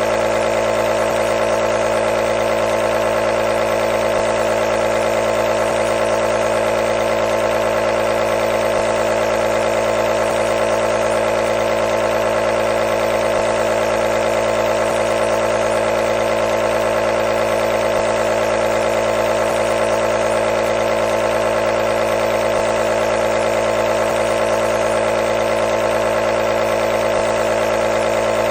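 Compressor nebulizer running with a steady, even motor hum that does not change.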